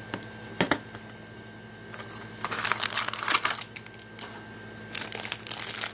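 Toy packaging crinkling as it is handled and opened, in two bursts, one about two and a half seconds in and one near the end, after a couple of sharp clicks.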